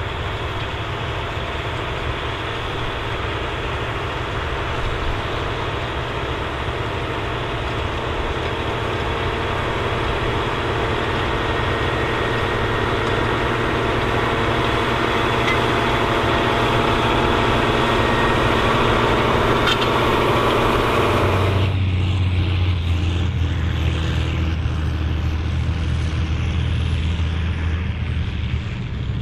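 Large farm tractor engine running steadily under load while pulling a field cultivator, slowly growing louder. About three-quarters of the way through the sound changes abruptly to a deeper, steadier engine drone.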